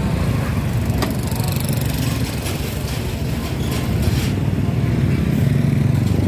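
A small engine running steadily, with a few light clicks over it.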